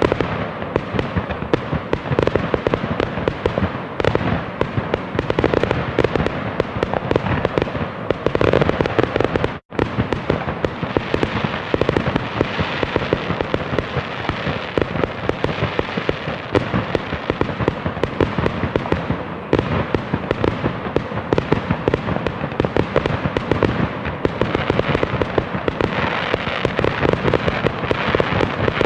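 Fireworks display: a dense, continuous stream of bangs, pops and crackling, broken by a split-second silent gap about ten seconds in.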